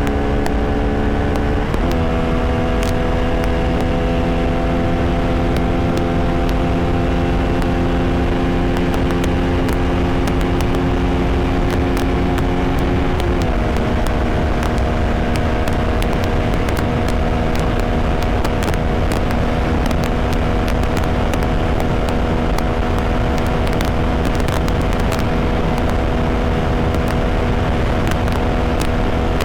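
Bajaj Pulsar RS200 single-cylinder engine running steadily while riding, with wind rush. The engine note drops in pitch twice, about 2 seconds in and again about 13 seconds in, and holds steady between.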